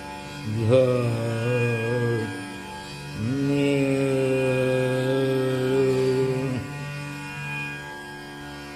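Male voice singing raga Malkauns in dhrupad style, over a steady drone. First comes a short phrase that sweeps up to a wavering note. After a pause there is one long held note.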